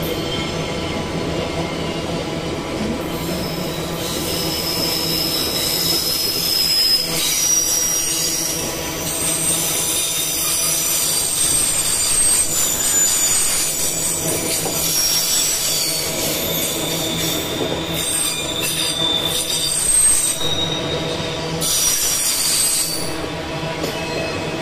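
Loaded freight train's steel gondola wagons rolling past with a steady rumble and rattle. High-pitched wheel squeals come and go over it, strongest through the middle stretch.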